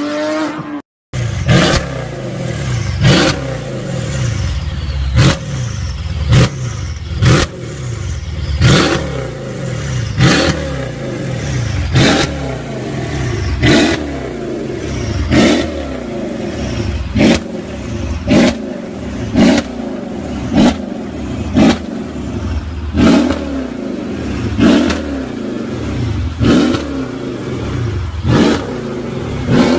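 Mercedes-AMG E63 sedan's V8 blipped again and again, about once a second, each rev rising and ending in a sharp exhaust crack. Before that, a different car's engine note rises and cuts off about a second in.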